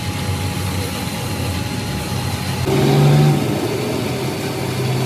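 An engine running steadily, then revving louder about two and a half seconds in before settling back.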